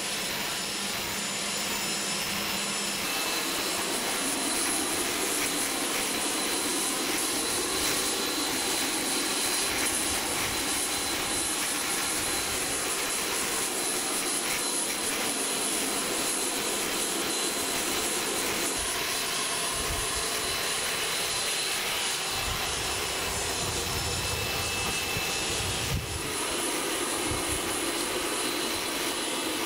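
Jet turbine running nearby: a steady loud rush with a thin high whine over it. Wind rumbles on the microphone in the second half.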